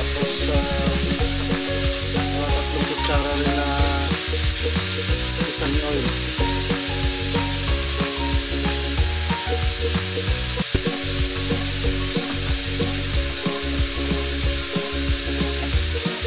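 Beef strips and sliced shiitake mushrooms sizzling in oil in a wok. A wooden spatula stirs them, with a steady hiss and frequent small clicks and scrapes against the pan.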